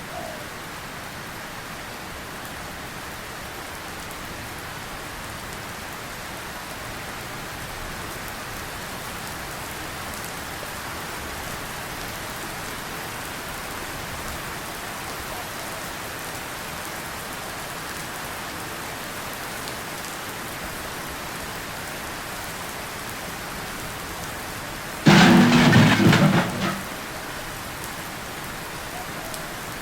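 Steady rain falling, with one sudden loud clap of thunder about 25 seconds in that fades within a couple of seconds.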